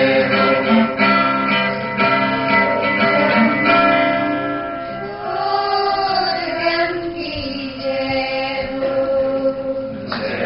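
Mixed choir of boys and girls singing an institutional anthem (kulgeet) together through stage microphones, with guitar accompaniment. A long held note wavers in pitch about two-thirds of the way through.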